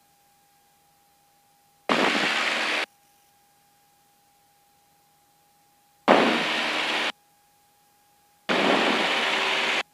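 Three bursts of hiss-like engine and airflow noise from a Cessna 172 on its takeoff roll, heard through the aircraft intercom, each about a second long and cutting in and out abruptly, about two, six and eight and a half seconds in. In between, the intercom is nearly silent apart from a faint steady tone.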